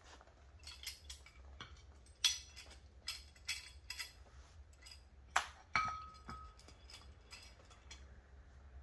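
Irregular metal clinks and taps of a socket and C-clamp being set against a brake caliper to press its pistons back in. One clink near six seconds in rings briefly.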